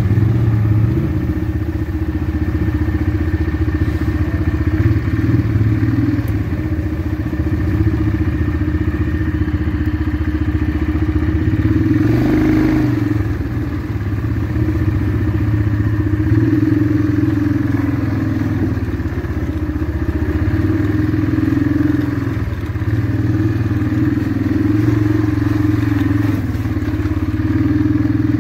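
ATV engine running as the machine rides a rough trail, its pitch rising and falling with the throttle. A brief rush of noise comes about twelve seconds in.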